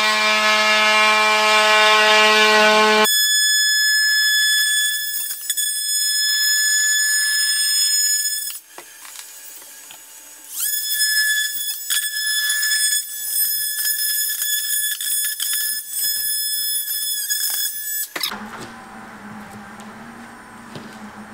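Handheld power tool cutting into drywall, running with a steady high-pitched whine. It stops briefly about nine seconds in, runs again with scratchy clicks as it bites, and shuts off about eighteen seconds in.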